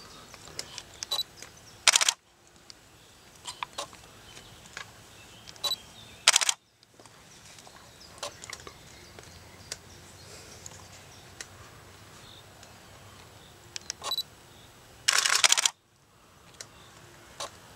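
Camera shutter firing: a short click cluster about 2 s in, another about 6 s in, and a rapid burst of clicks lasting nearly a second near the end, over faint scattered ticks and rustles.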